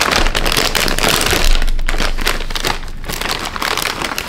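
Plastic potato chip bag being pulled open and handled: loud crinkling and crackling that starts suddenly and dies down toward the end.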